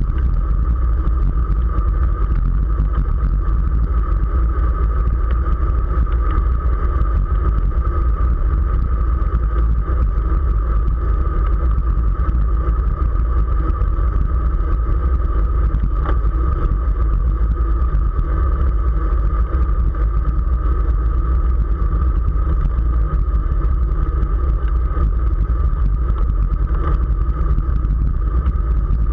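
Wind buffeting the microphone of a camera riding on a road bicycle at speed: a loud, steady low rumble with a constant mid-pitched hum running through it.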